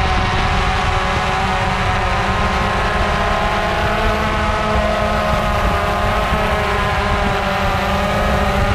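Quadcopter drone's propellers buzzing, heard from the drone itself over a low rumble of prop wash. The whine dips a little in pitch midway and climbs again near the end as the drone descends toward its pilot.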